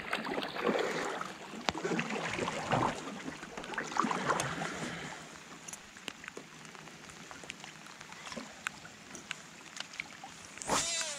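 Water splashing and sloshing around a kayak for the first few seconds, then quieter scattered small knocks and ticks. Near the end comes a brief bright whir falling in pitch.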